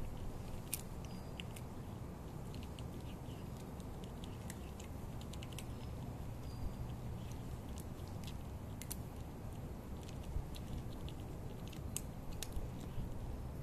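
A cat crunching dry kibble, with irregular sharp crunches scattered through, over a steady low background noise.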